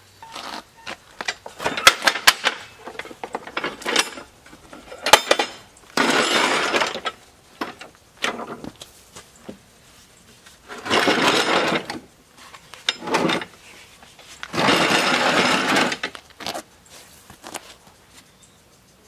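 Hand tools and the metal riding-mower deck and blades being handled: irregular clanks, clinks and knocks, with three harsher, noisier stretches of about a second each.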